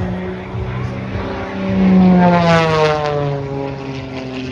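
Propeller engine of a Red Bull aerobatic plane flying past. It grows loud about two seconds in, then its pitch falls as it goes by.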